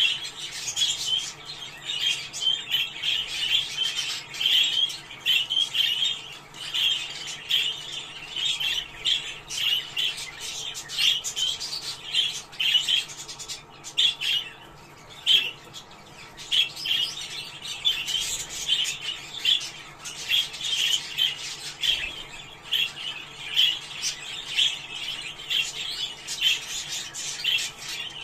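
Budgerigars chattering and warbling: a steady stream of quick, high chirps and squawks that thins out briefly around the middle.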